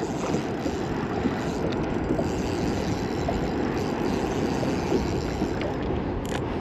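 Steady rushing and splashing of water around a fishing kayak, flecked with small ticks.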